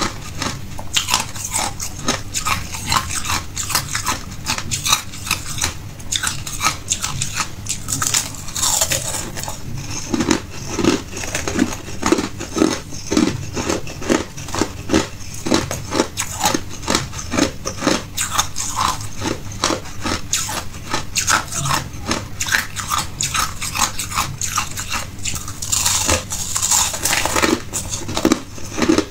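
Crushed ice being bitten and chewed: rapid, continuous crunching and crackling of hard ice chunks.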